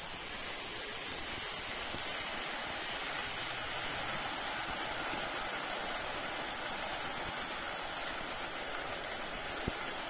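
Model trains running past on a curved layout track: a steady rushing whirr of wheels on rail and small motors, with a single click near the end.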